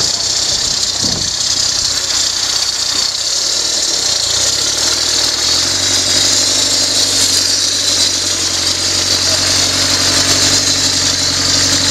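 Off-road challenge truck's engine running as the truck comes down the dirt track and pulls up close, settling into a steady low note about four seconds in.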